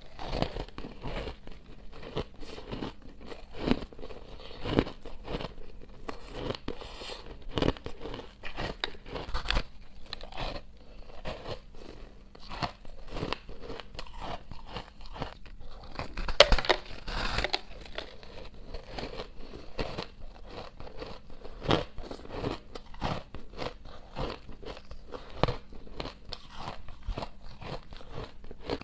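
Close-miked crunching of a slab of purple crushed ice being bitten and chewed: a steady run of sharp, crisp crunches, with the loudest burst of bites about halfway through.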